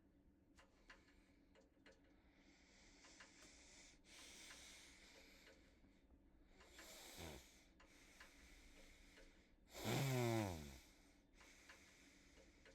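Ceiling fans running on high with a faint steady hum and light ticking. About seven seconds in, and again more loudly for about a second near ten seconds, a breathy sound falls in pitch like a voiced sigh.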